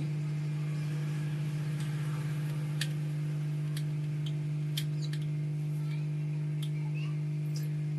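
Steady low electrical hum from the repair bench equipment, with a few faint, sharp ticks of small metal tools touching the circuit board.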